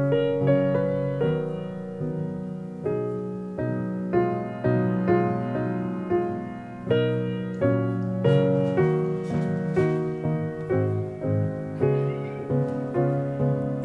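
Background music: a gentle solo piano piece, notes struck in a steady flowing pattern.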